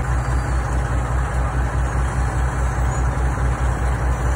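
Heavy diesel engine of road-paving machinery running steadily, a low throb pulsing evenly several times a second.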